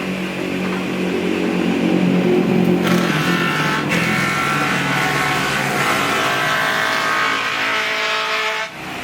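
Chang Iron 41 cm wood planer running with a steady motor hum. About three seconds in, a louder, harsher cutting tone sets in and holds, then cuts off sharply near the end, as a board passes through the cutterhead.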